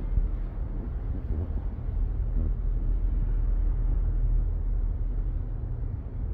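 Steady low background rumble, heaviest in the bass, with a softer, even noise above it.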